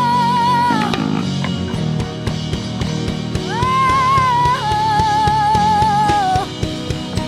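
Church band music: a high lead melody held in long notes with vibrato, over sustained chords and a steady drum beat. The melody breaks off about a second in and comes back with an upward glide after about three and a half seconds.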